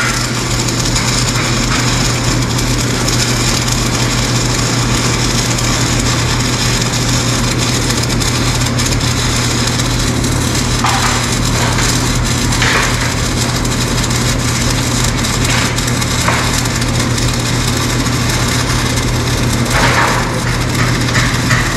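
Electric arc welding: a steady, continuous crackle of the welding arc laying a bead on steel brackets, with a steady low hum underneath.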